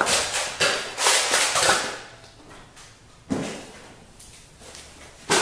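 Rummaging: objects being handled and moved about, with rattling and scraping in several short bursts, most of them in the first two seconds and one more a little past halfway.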